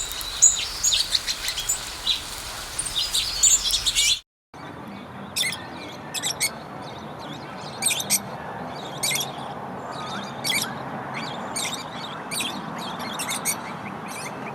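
Songbirds chirping, many calls overlapping at first. About four seconds in the sound cuts out briefly. It returns as sparser, short, high chirps repeating every second or so over a steady background hiss.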